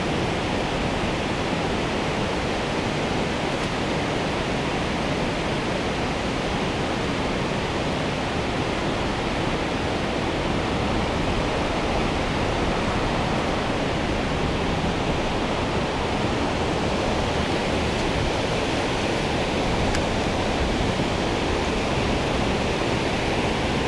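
Steady, even rush of flowing river water, with no change in level throughout.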